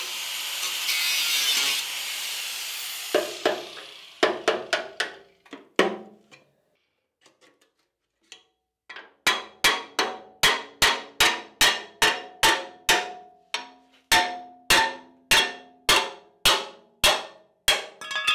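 Angle grinder working the steel of a Land Rover chassis rail, dying away after about three seconds. Then a hammer striking the steel with a ringing clang: a few blows, a pause, and from about nine seconds a steady run of blows about two a second.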